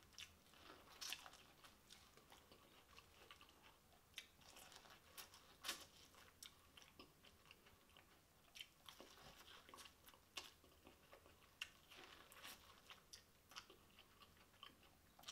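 Faint biting and chewing of corn on the cob: scattered soft crunches and wet mouth clicks as kernels are bitten off the cob and chewed.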